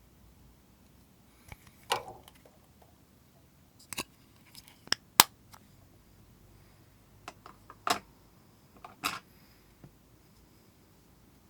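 Slime being pressed and worked by hand, giving a scattering of sharp clicks and pops with quiet gaps between them; the loudest comes about five seconds in.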